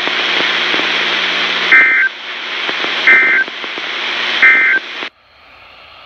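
Emergency Alert System end-of-message code: three short, shrill digital data bursts about a second and a half apart over a hissy radio signal. This marks the close of the alert. About five seconds in, the transmission cuts off and only faint static is left.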